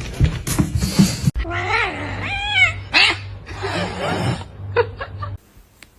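A cat meowing: several drawn-out meows that bend up and down in pitch, starting about one and a half seconds in after some knocks, and cutting off sharply near the end.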